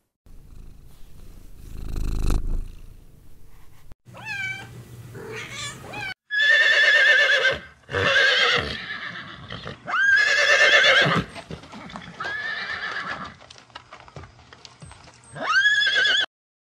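Horse whinnying: a run of about five long neighs with a quavering pitch, the loudest in the middle, after a few quieter seconds at the start.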